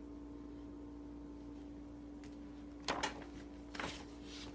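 Two brief rustles of paper stickers being handled, a little under a second apart, over a steady low electrical hum.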